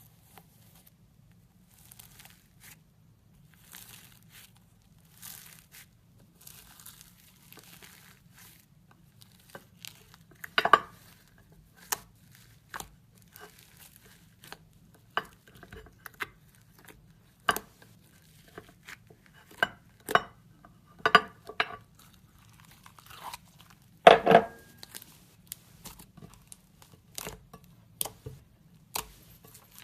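Crunchy slime being squeezed and kneaded by hand. Soft crackling for the first third, then sharp crunchy pops and clicks every second or so, the loudest one late on.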